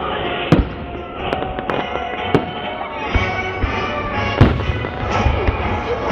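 Fireworks going off in several sharp bangs at irregular intervals, over music playing.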